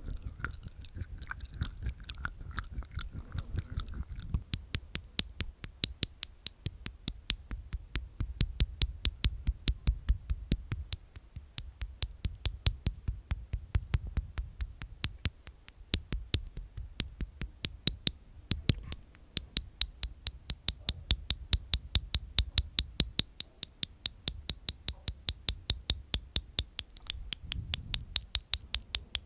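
ASMR mouth sounds close to the microphone: a rapid, even run of tongue and teeth clicks inside the mouth, several a second.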